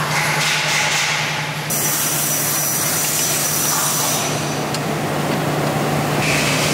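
A steady low machine hum with a hiss over it; the hiss changes abruptly a few times.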